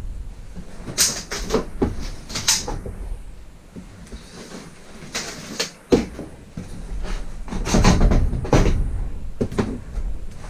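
Irregular knocks, bumps and rattles of a homemade table being moved and tried out, loudest about a second in and again around eight seconds.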